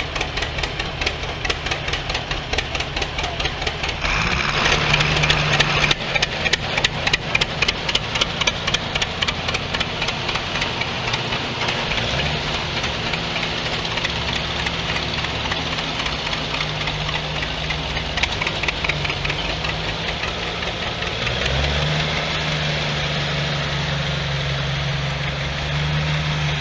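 Old farm tractor engines running at low speed as tractors drive past one after another, an even pulsing firing beat that grows louder about four seconds in, with the engine note shifting as each tractor passes.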